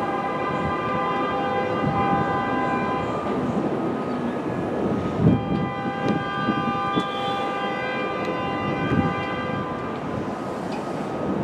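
NYC Subway R62A train on elevated track: its horn sounds in two long blasts over the rumble of the train. Sharp wheel clacks come through during the second blast as the train crosses over the switches from the local to the express track.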